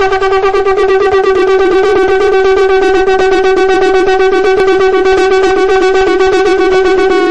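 Intro music: one long, loud note held at a steady pitch on a reedy, horn-like wind sound, fluttering rapidly throughout.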